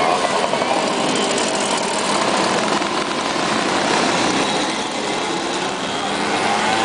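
Many Puch mopeds' small two-stroke engines running together as a column rides past, a steady din of overlapping engine notes whose pitches waver up and down.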